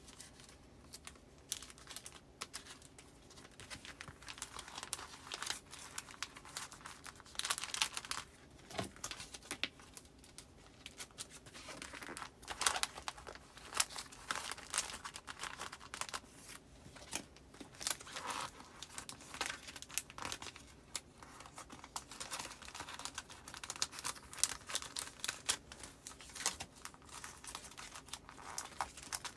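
Postcards and paper goods being handled and filed into a binder: irregular crinkling and rustling of paper and plastic pockets, with frequent small sharp ticks.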